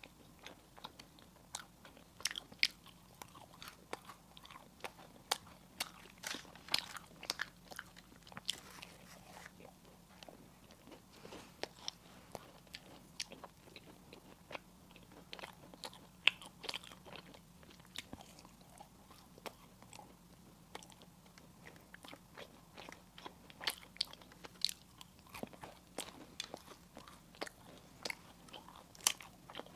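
Close-up eating sounds of crisp pastries and sweets: irregular crunching bites and chewing, busier in the first few seconds and again toward the end, with a quieter stretch of chewing in between.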